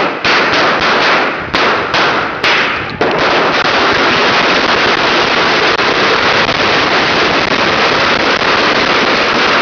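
A ground firework burning with a loud, steady hiss of spraying sparks. A few sharp cracks go off in the first three seconds.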